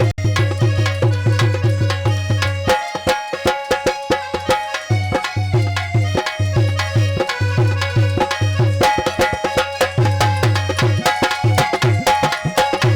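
Instrumental interlude of a Hindi devotional aarti song: a fast, even hand-drum rhythm under a melody line, with no singing. The low drum strokes drop out for a couple of seconds about three seconds in.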